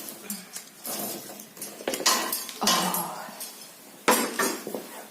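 Pieces of firewood knocking and clattering against the metal of a fireplace as it is loaded for relighting: a run of irregular sharp knocks with brief metallic clinks, the loudest about two seconds in and again near four seconds.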